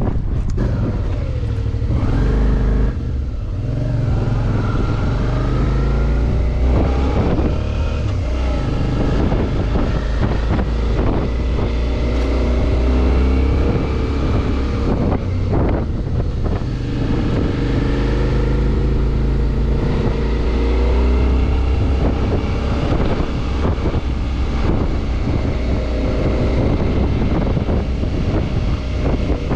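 Suzuki V-Strom 650 XT's V-twin engine running under load as the motorcycle pulls uphill, its pitch rising and falling with throttle and gear changes, over steady wind noise on the microphone.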